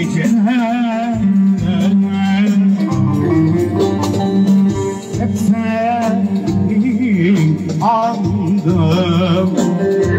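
A man singing with a wavering vibrato into a microphone while playing a Korg Pa1000 arranger keyboard, its backing chords and drum beat running underneath.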